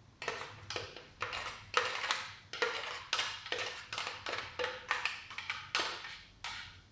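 A metal spoon repeatedly knocking and scraping against a clear blender jar as thick blended prune puree is scooped out, about three sharp taps a second.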